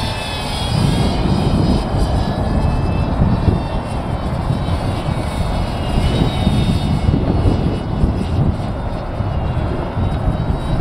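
Propeller motor of a small 3D-printed RC flying-wing model whining high overhead, its pitch wavering up and down as the model manoeuvres. Heavy wind rumble on the microphone is the loudest sound throughout.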